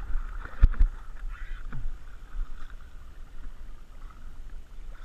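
Splashing and sloshing water as a hooked fish thrashes at the surface in shallow water and is led into a landing net, over low wind rumble on the microphone. Two sharp knocks come a little under a second in.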